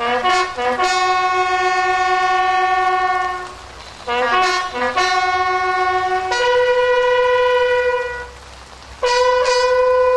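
Military bugle call on the notes of a valveless horn: each phrase opens with a few quick short notes and settles into long held notes, with short breaks between phrases and the later held notes pitched higher.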